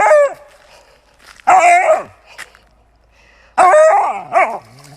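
A dog whining and howling in protest, three drawn-out cries with bending, falling pitch, the last one the longest.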